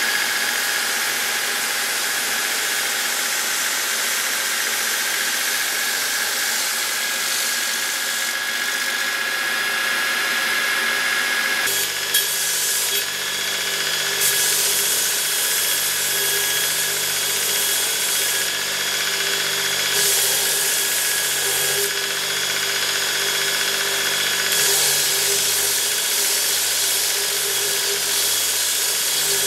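A power tool running steadily. About twelve seconds in, its sound changes and a low hum joins it; from then on the high hiss grows louder and drops back every couple of seconds.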